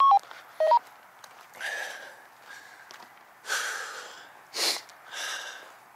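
Two quick two-note electronic beeps from an Anytone DMR handheld radio at the start. Then a man breathes hard in several audible breaths, out of breath from walking uphill.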